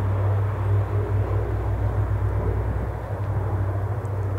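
Steady low drone of a propeller transport aircraft's engines overhead during a parachute drop.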